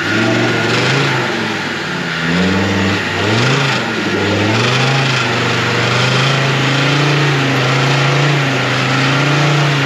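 Off-road car's engine revving up and down as it churns forward through a deep muddy rut, then holding steady revs for the last few seconds.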